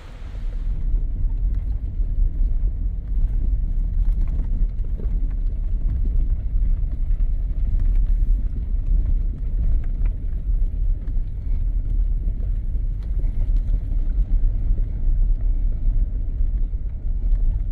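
Off-road vehicle driving a rough dirt trail, its engine and tyres making a steady low rumble with faint rattles over it.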